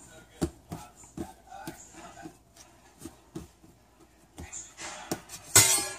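Pretzel dough being rolled by hand into a log on a cutting board: a series of soft, irregular knocks and taps as the hands press and roll it, with a louder brushing noise near the end.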